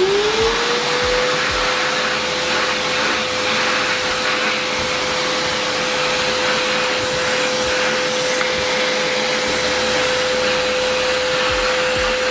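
American Micronic 21-litre, 1600-watt wet-and-dry vacuum cleaner running. Its motor whine rises in pitch as it finishes spinning up in the first second, then holds steady over a loud rush of air.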